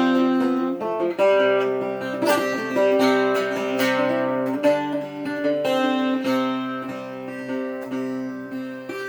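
Cittern plucked and strummed, playing the instrumental introduction of a song, with a new chord or pluck about every second.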